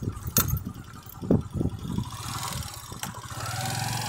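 Motorcycle engine running at low speed, with a few sharp knocks and rattles over the gravel road.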